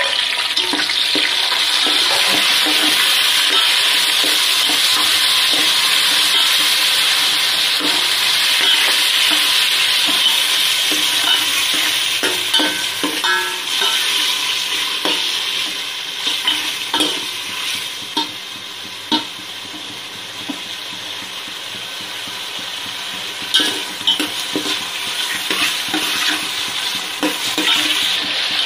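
Sliced tomatoes sizzling in hot refined oil in a steel pot. The sizzle is strong at first and dies down after about twelve seconds, while a steel spoon knocks and scrapes against the pot as they are stirred, with a few sharp clinks in the second half.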